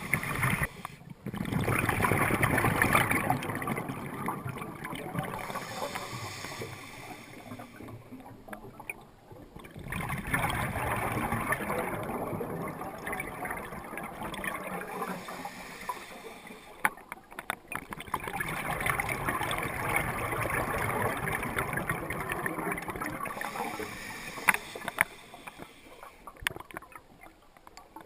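Water washing in three long surges, about eight seconds apart, each swelling and then fading away: waves running in and out.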